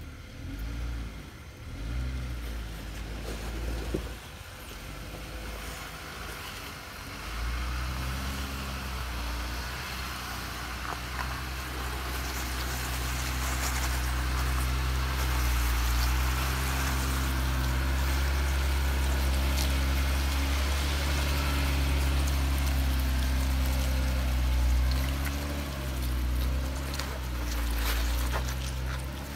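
Jeep Wrangler JL's engine running at low revs as it crawls over rock, its pitch rising and falling gently with the throttle. It is faint and broken for the first several seconds, then steady and louder.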